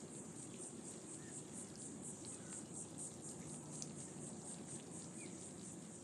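Insects chirring in the scrub: a faint, high-pitched, rapidly pulsing drone that runs on steadily, over a low, even background hum.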